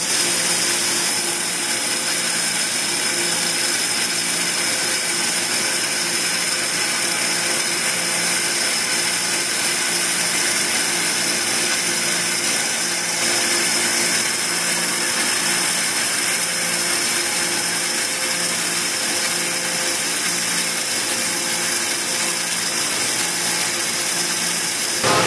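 CNC waterjet cutting head cutting a steel plate: a loud, steady hiss of the high-pressure jet, with a low hum pulsing evenly underneath.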